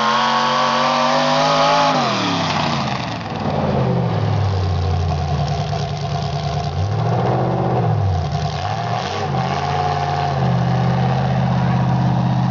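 Racing engine on a test run: held at high revs, then dropping back to a lower, uneven idle, with two quick throttle blips in the second half.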